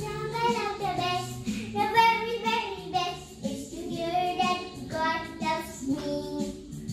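A young girl singing a song solo, her voice moving up and down between held notes.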